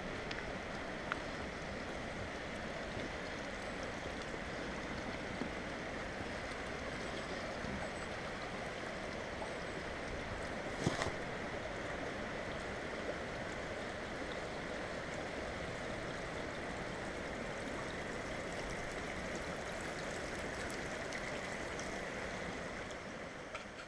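Small forest stream flowing steadily, a continuous rush of running water, with a single brief knock about eleven seconds in.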